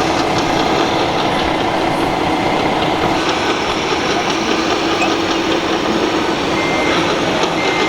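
Radio-controlled scale construction machines running steadily with an engine-like hum. A reversing beeper starts near the end, giving short high beeps about once a second.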